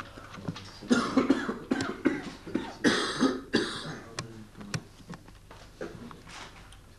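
A person coughing and clearing their throat, several rough bursts between about one and four seconds in, with a few small clicks.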